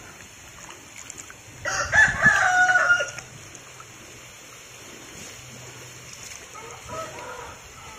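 A rooster crows once, loudly, for about a second and a half, over faint sloshing of water as a pigeon is washed by hand in a basin.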